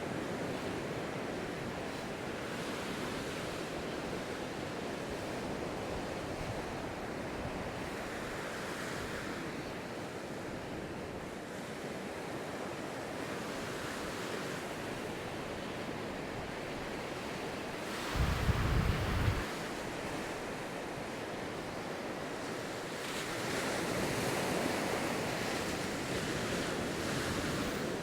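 Ocean surf breaking and washing up a sandy beach, swelling and easing as sets roll in, with wind across the microphone. About two-thirds of the way through there is a short, loud rumble of a wind gust buffeting the microphone.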